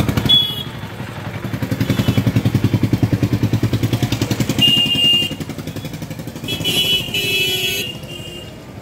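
Street traffic, led by a motorcycle engine running close by with a fast, even chugging pulse that eases off after about five seconds. Short high-pitched horn beeps sound about half a second in, around five seconds and again around seven seconds.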